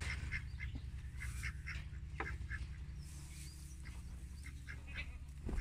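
Poultry calling: many short, quacking calls repeated at irregular intervals, over a steady low hum.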